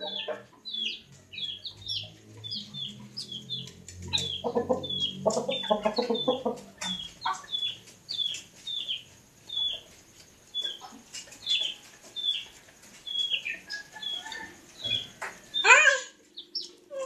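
Chickens calling: a steady string of short, high, falling peeps about once or twice a second, with lower clucking a few seconds in and one loud call near the end.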